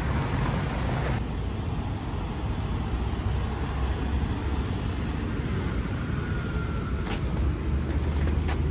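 Steady low rumble and road noise of a motor vehicle on the move.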